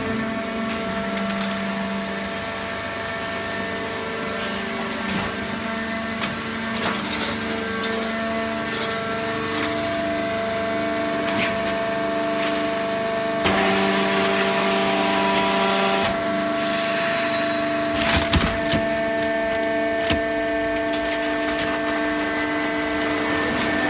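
Fully automatic horizontal hydraulic baler running with a steady hum and several constant whining tones from its motor and hydraulic pump. A hissing rush lasts a couple of seconds around the middle, and a few sharp knocks come near the end.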